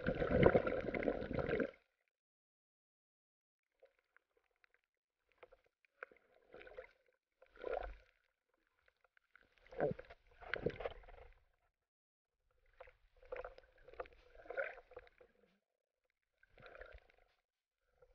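Muffled water swishing and sloshing heard underwater through a camera's waterproof housing as snorkelers swim, in irregular bursts a second or two long, the loudest at the very start.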